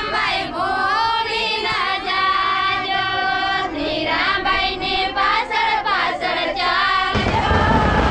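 A group of women singing a traditional Ahir wedding song together in Gujarati. About seven seconds in, a low rumble comes in over the singing.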